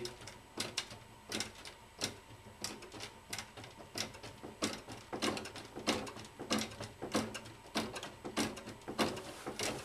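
A light, flimsy folding table rocking under people's hands, its legs and frame knocking against the floor in a rapid, irregular run of clicks and knocks, about two or three a second.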